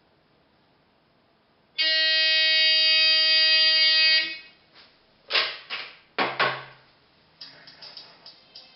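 Rotary telephone rigged to ring electronically: one steady buzzing ring tone lasting about two and a half seconds. The handset is then lifted off the cradle and set down with a few sharp plastic clatters, and faint audio from the phone's playback starts near the end.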